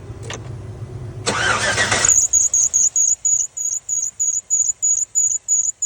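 GMC vehicle started, with a short loud rush of noise as it fires, then a high-pitched squeak repeating about three to four times a second. The mechanics take it for a dry part that needs a grease nipple and greasing.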